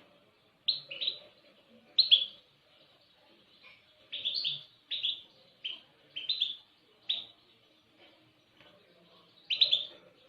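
A small songbird giving about a dozen short, sharp, down-slurred chirps, singly and in quick pairs, with a pause of about two seconds before a final cluster near the end.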